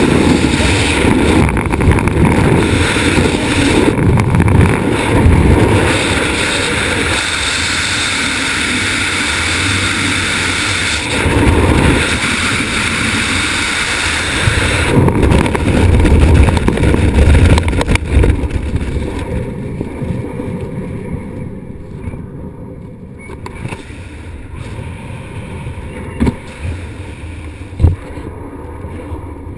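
Freefall wind rushing and buffeting over a body-mounted camera's microphone. Over the last ten seconds it dies down to a much softer wind as the parachute opens and the fall slows, with a dull thump and a sharp knock near the end.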